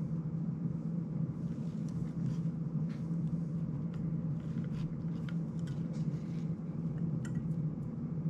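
Faint scattered clicks and taps of fingers working a tiny MMCX connector onto an FPV drone's video transmitter, over a steady low hum.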